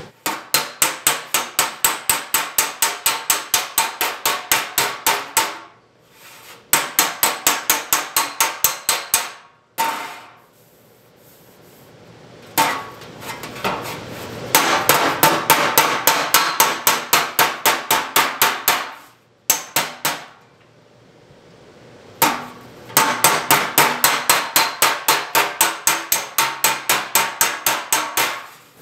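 Hand hammer striking a welded sheet-metal repair panel clamped in a bench vise, in four runs of rapid blows at about five a second with short pauses between. Each blow rings briefly. It is hand planishing, beating the panel and its weld flat into shape.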